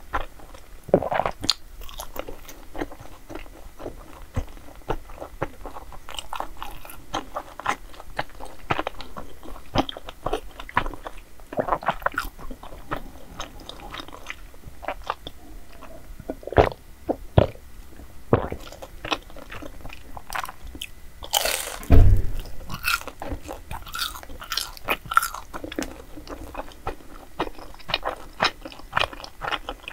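Close-miked eating sounds of chewy Korean dessert: repeated bites, wet chewing and sticky mouth clicks. One louder thump about 22 seconds in.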